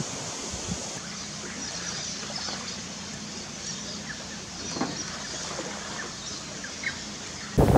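Scattered short bird chirps and calls, faint, over a steady low hum and light wind noise.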